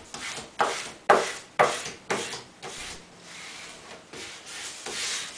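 Vinyl wrap being rubbed and smoothed down onto a wooden cornhole board with back-and-forth strokes. About five quick swipes come in the first two seconds, then softer, steadier rubbing.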